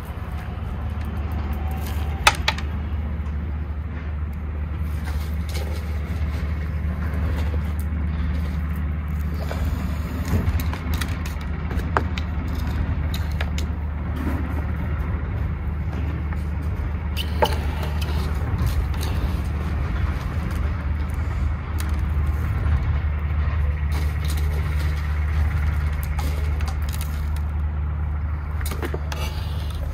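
A steady low motor hum, like an engine running, with a few light knocks over it.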